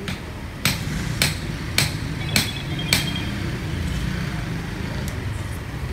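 Five sharp knocks like hammer blows, evenly spaced at a little under two a second, then stopping about three seconds in, over a steady low hum.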